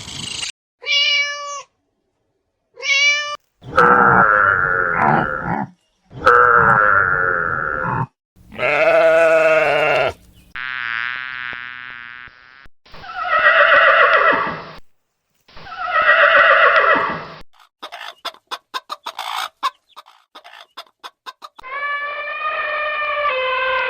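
A string of separate farm animal calls, mostly goat bleats, cut one after another with short silences between them: two short calls, then several longer calls of a second or two each, one with a quavering wobble. A quick run of clicks comes about two thirds of the way in.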